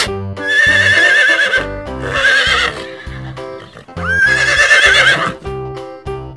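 Horse whinnying three times, each call a shaky, wavering neigh, over cheerful children's background music with a steady beat.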